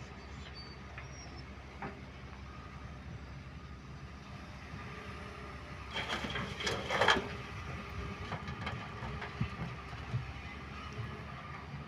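Diesel excavator engine running steadily, with a louder burst of clattering and scraping about six seconds in and a few knocks after it.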